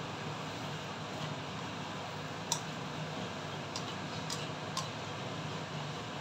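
Spatula scraping and stirring chopped bacon in a nonstick wok, with a few sharp clicks as it knocks the pan, over a steady hiss.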